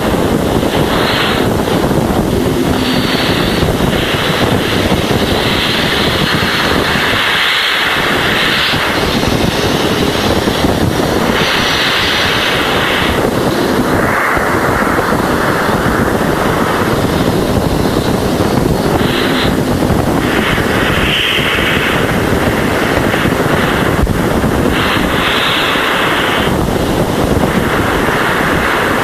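Voyager 1 Plasma Wave Subsystem signals from Jupiter's magnetosphere, converted to audio: a loud, steady rushing hiss, with bands of higher-pitched hiss switching on and off every second or few, and a thin steady tone held throughout.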